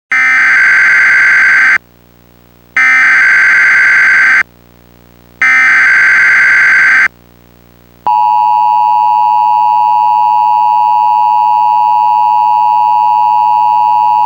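Emergency Alert System SAME header: three bursts of data tones, each about a second and a half long with about a second between them. About eight seconds in, the steady two-tone EAS attention signal follows.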